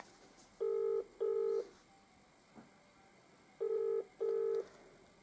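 Telephone ringing tone in the British double-ring pattern, heard twice about three seconds apart: each is a pair of short, low, steady buzzes. It is the sound of a call to the home line ringing out.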